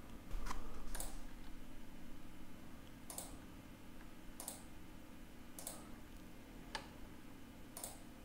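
Computer mouse clicking: about seven single, sharp clicks spaced a second or so apart, over a faint steady low hum.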